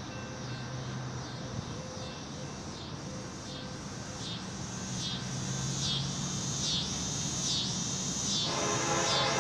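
Summer insects buzzing in a high chorus that swells and dips about every three-quarters of a second and grows louder, over a low steady hum. Background music comes in near the end.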